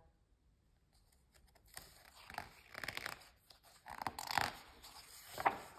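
Paper rustling as a picture book's page is handled and turned: a run of soft swishes, starting after about a second and a half of near quiet.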